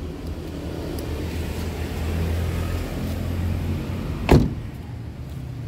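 One loud thump about four seconds in, a car door being shut on a Honda CR-V, over a low steady rumble.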